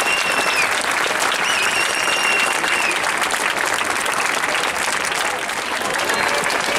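A crowd applauding steadily: many hands clapping.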